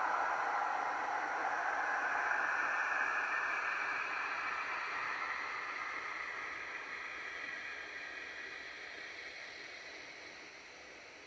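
A steady hiss, like static or rushing water, that fades slowly and evenly until it is faint near the end.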